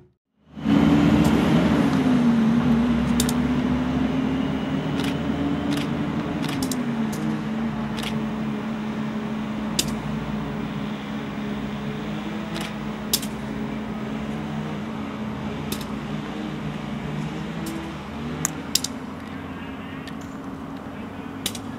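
Diesel engine running steadily. Its pitch drops twice as the revs ease, rises again near the end, and slowly grows quieter, with a few sharp clicks scattered through.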